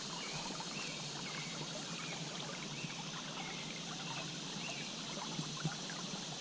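Shallow creek water running over stones: a steady trickle and babble.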